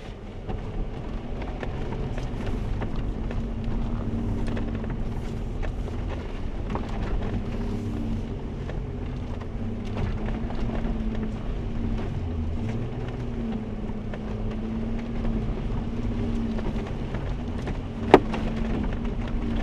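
Jeep engine and drivetrain running steadily at low speed on a dirt trail, heard from inside the vehicle, with scattered light clicks and one sharp knock near the end.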